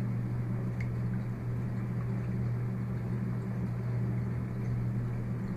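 Steady low electrical hum, with one faint tap of a paintbrush against a ceramic mug about a second in as the brush is rinsed in water.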